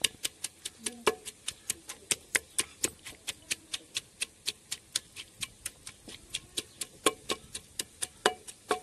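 Wooden pestle pounding pomegranate arils in a clay pot, a steady quick tapping of about three to four strokes a second with a few harder knocks, crushing the seeds to press out their juice.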